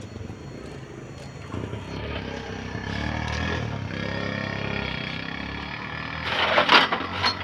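A vehicle engine running, its pitch slowly rising and falling over a few seconds, then loud clatter of metal tools being handled near the end.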